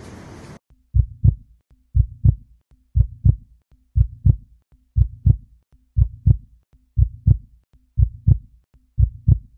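Heartbeat sound effect: a slow, steady lub-dub, two low thumps about a third of a second apart, repeating once a second. The background noise cuts off about half a second in, leaving only the heartbeat.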